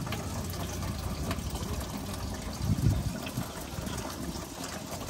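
Antifreeze draining from a truck radiator in a scattered stream and splashing into a bucket. There is a louder dull thump about three seconds in.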